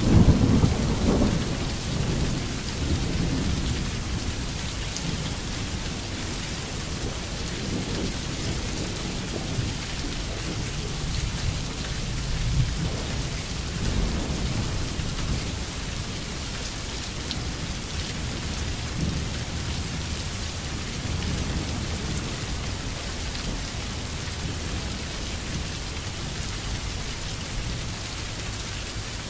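Steady rain hissing, with thunder rumbling underneath: a loud roll of thunder right at the start that fades over a couple of seconds, and softer rumbles later on.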